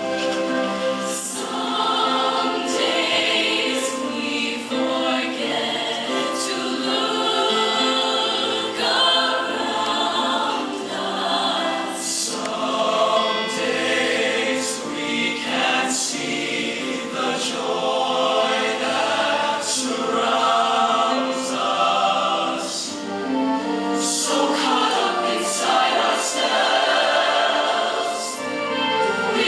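High school show choir singing together as a group, many voices sustaining and moving between notes without a pause.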